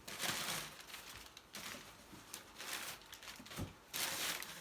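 Rustling and scraping of a large cardboard box and its packaging being handled and set down, in three bursts, with a dull thud a little past halfway.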